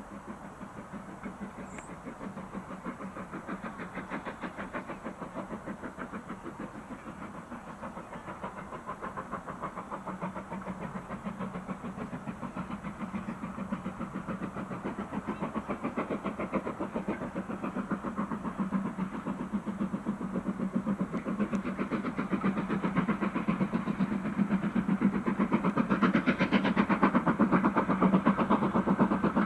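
Steam locomotive working hard uphill, its exhaust beating in a rapid, even rhythm. It grows steadily louder as the engine approaches, loudest near the end.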